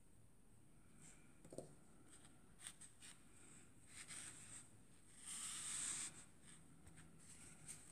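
Faint handling sounds of crocheted silk-and-lurex fabric and yarn being pulled and smoothed on a table mat: a few small clicks and a louder brushing rustle about five seconds in.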